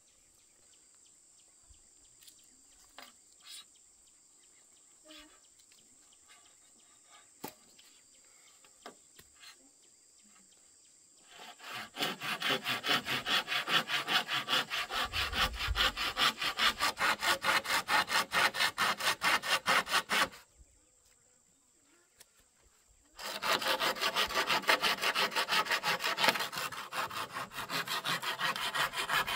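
Saw cutting through bamboo in fast back-and-forth strokes. A spell of about nine seconds starts about twelve seconds in, then after a short pause a second spell runs on. Before the sawing there are only faint scattered ticks.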